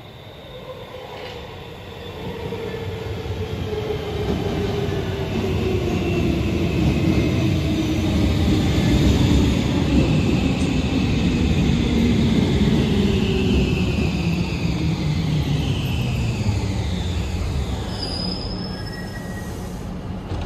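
Helsinki metro train pulling into an underground station and braking to a stop. The rumble builds as it arrives and runs along the platform, and a whine falls steadily in pitch as it slows. A short high squeal comes near the end as it comes to a halt.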